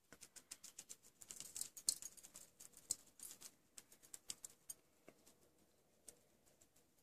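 Shichimi chili pepper shaken from a small shaker bottle: a faint, quick patter of fine ticks that dies away about five seconds in.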